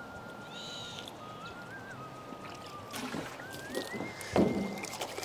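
Water sloshing and splashing, starting about three seconds in, with one sharper splash near the end.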